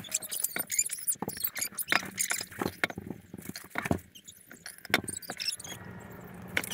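Irregular clicks, taps and wet squishing from handling thawed tomatoes in a bowl while their excess liquid is poured off.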